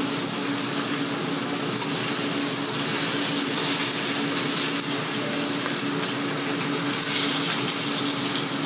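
Slices of meat sizzling in a frying pan over a gas burner, a steady hiss, with a steady low hum underneath.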